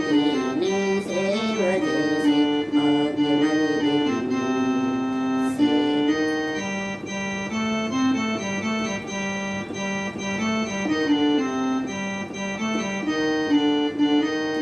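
Electronic keyboard playing a slow melody of held notes over a lower line that changes pitch now and then.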